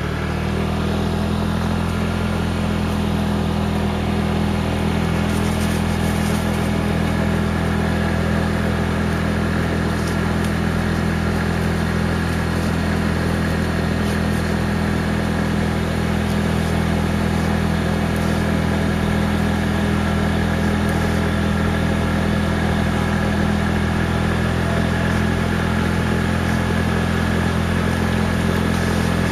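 Motorcycle engine running at an even, unchanging pitch as the bike rides along, with a steady hiss over it.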